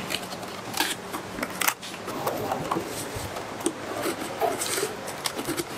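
Corrugated cardboard carry boxes being folded and assembled by hand: irregular crisp snaps, scrapes and rustles as flaps are creased and tabs pushed into slots.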